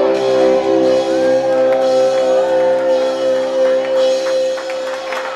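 Live band letting the final chord of a song ring out: a held, steady chord from electric guitar and upright bass that slowly fades near the end, with shouts from the audience over it.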